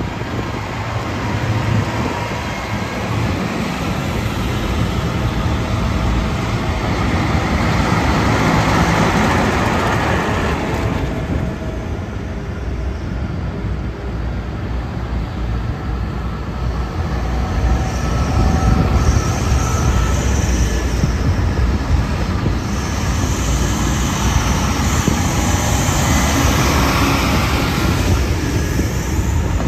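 Large diesel farm tractors driving past one after another, the engine noise swelling as each one comes near and easing as it goes by. Near the end a green John Deere tractor passes close.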